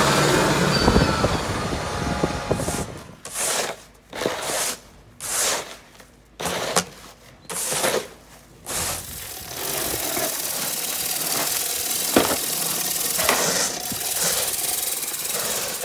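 A tractor with a front snow plow runs for the first couple of seconds, then snow shovels scrape across brick paving in about six separate strokes. After that comes a steadier scraping noise with a few knocks.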